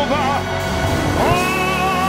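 Live gospel music: sustained chords, with a note that slides up about a second in and is then held with a slight vibrato.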